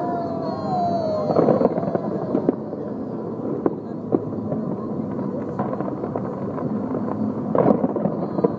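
Fireworks display going off: a dense ongoing rumble with scattered sharp cracks and louder clusters of bangs. A whistling tone slides in pitch near the start.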